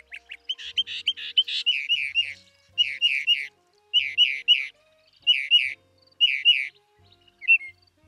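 Northern mockingbird singing a string of varied phrases. Each phrase is a short down-slurred note repeated two or three times in quick succession, with brief pauses between the groups.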